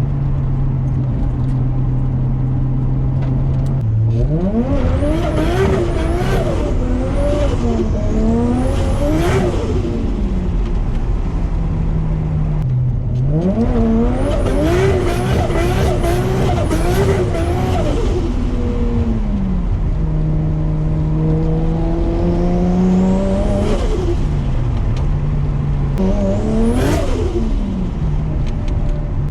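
Built 550 hp Nissan RB25DET turbocharged straight-six in an R33 Skyline, breathing through an exhaust with a screamer pipe. It runs at a steady low note, then accelerates hard in three bursts, about four seconds in, near the middle and near the end. In each burst the revs climb in steps through gear changes and then fall away.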